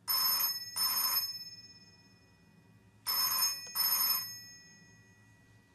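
Old black desk telephone's bell ringing in a double-ring pattern: two ring-ring pairs about three seconds apart, each ring leaving a fading bell tone.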